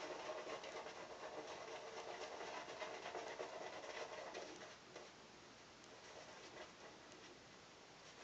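Shaving brush working lather over a stubbled face: a faint, soft bristly scratching that drops off after about five seconds.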